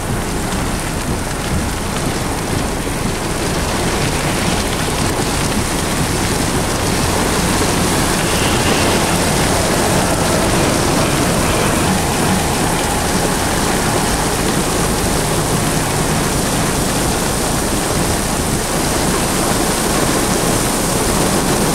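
Torrential thunderstorm rain pouring down in a steady, loud hiss.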